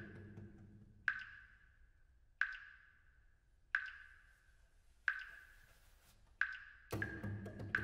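Evenly repeated high pings, seven of them about 1.3 seconds apart, each struck sharply and ringing briefly before dying away, from the piece's electronics. Low cello tones sound under the first ping and come back near the end.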